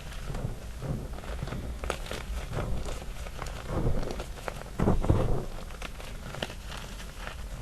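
Gym chalk chunks being crushed by hand in loose chalk powder: many small, irregular snaps and crackles over soft pressing and squishing, with two heavier presses about four and five seconds in.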